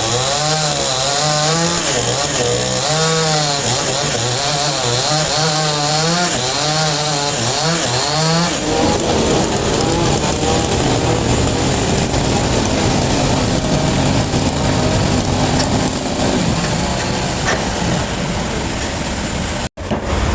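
Power saw cutting timber: its motor rises and falls in pitch in repeated swells for the first several seconds, then settles into a steady, noisy sawing through the wood, with a sudden momentary cut-out just before the end.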